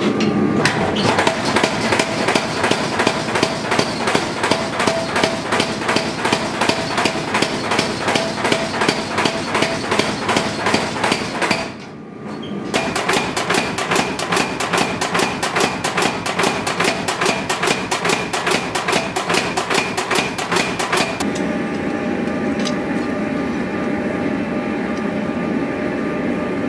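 Power hammer striking a red-hot pattern-welded steel bar in rapid, evenly spaced blows, several a second. There is a brief break about twelve seconds in. After about twenty-one seconds the blows stop and a steady running hum remains.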